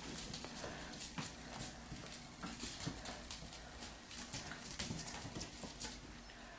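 Four-week-old Belgian Sheepdog puppy's claws clicking faintly and irregularly on a hard tile floor as it walks.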